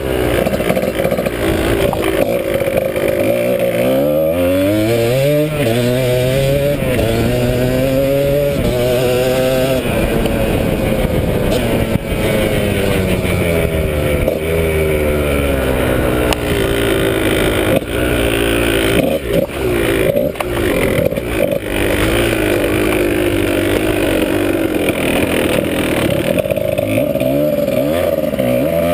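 Dirt bike engine running under hard riding, its pitch climbing again and again as the rider accelerates through the gears and falling back as he eases off. A few brief knocks and dips in the engine sound come about two-thirds of the way through.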